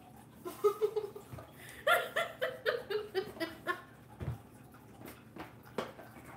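High-pitched laughter: a short whoop, then a quick run of about nine 'ha' pulses that fall in pitch, followed by a few soft clicks and smacks.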